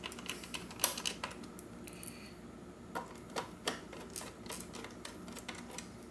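Irregular light clicks and taps of small metal screws being picked up and set into a robot vacuum's circuit board and plastic chassis.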